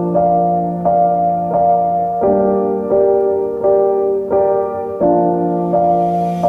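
Background music: a piano or electric piano playing soft chords, with a new chord struck about every 0.7 seconds.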